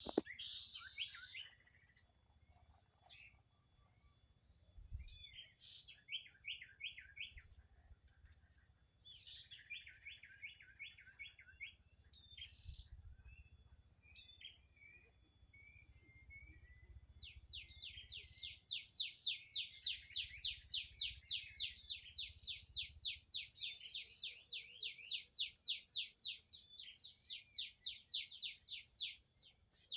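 Songbirds calling: short phrases of quick repeated chirps at first, then from about halfway on one bird keeps up a long fast trill of repeated notes, several a second. A low rumble sits underneath.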